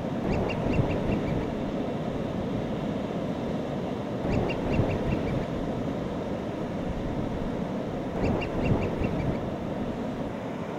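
Ocean surf breaking steadily, with a seabird calling in quick series of about six short, high notes, three times about four seconds apart.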